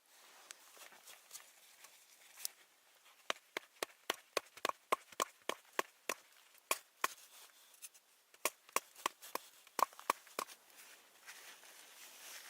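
A quick series of sharp knocks or cracks, about three to four a second, starting about three seconds in and stopping near ten seconds.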